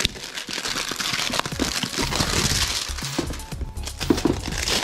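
Clear plastic shrink-wrap crinkling and tearing as it is slit with a knife and pulled off a hard lens case, over background music.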